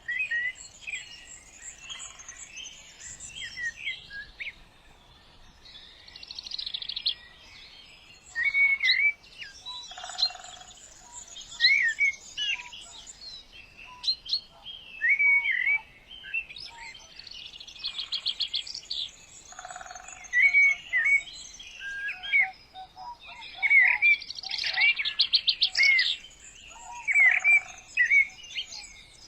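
Birds chirping and singing: repeated short chirps mixed with quick trilled phrases, coming in bursts.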